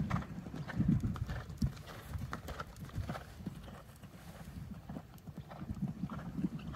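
Horse's hoofbeats at a canter on sand footing: a run of muffled thuds that fades in the middle as the horse moves off and grows again near the end.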